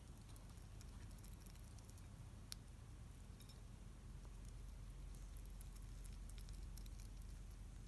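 Hedgehog crunching dry kibble: faint, irregular small crunches and clicks over a steady low hum.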